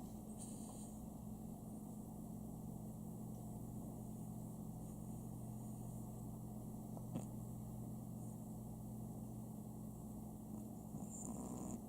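A steady low hum and quiet room noise, with a single click about seven seconds in. Near the end the sleeping Chihuahua gives one short snore.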